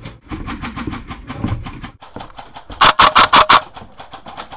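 Airsoft guns firing on full auto: a steady patter of quieter shots, then a loud, close burst of about six shots a little under halfway through.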